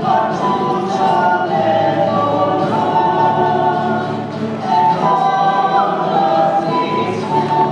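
Church choir singing in parts, holding sustained notes that step from one to the next in a melody.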